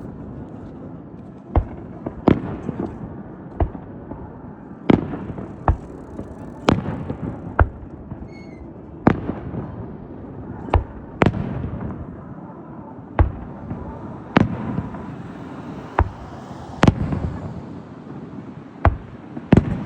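Aerial firework shells bursting one after another at uneven intervals: sharp bangs about once a second over a steady rumble of echoes.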